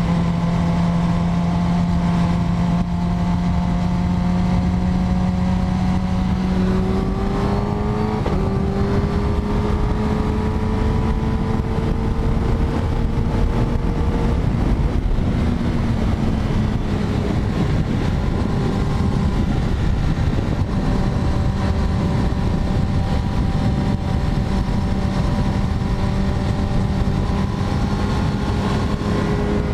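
Kawasaki Ninja ZX-10R's inline-four engine running at a fairly steady cruising pitch, with a rush of noise underneath. The note climbs slightly about a quarter of the way in, then holds nearly level.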